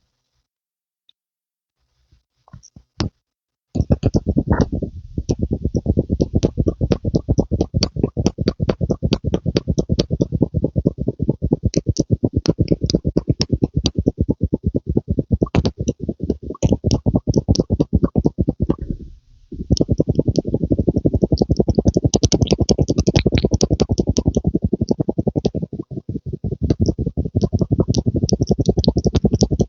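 Rapid, steady run of pumping strokes, several a second, starting about four seconds in, with a brief pause just after the middle.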